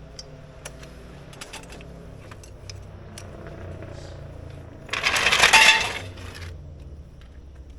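Metal tire-change tools clinking as they are handled, with a loud metallic clattering rattle about five seconds in that lasts about a second and a half.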